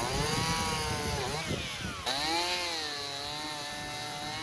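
Two-stroke chainsaw cutting through a log with a dull chain, the engine speed rising and then dropping under load as it bites into the wood.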